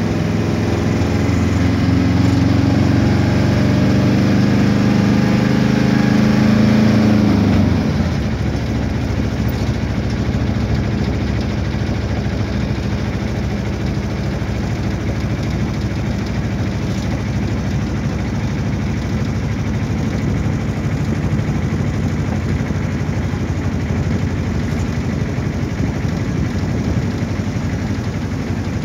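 The engine and road noise of a moving road vehicle, heard from inside the cabin. The engine note climbs slightly for the first several seconds, then drops abruptly and turns softer. It then runs on as a steady, lower rumble.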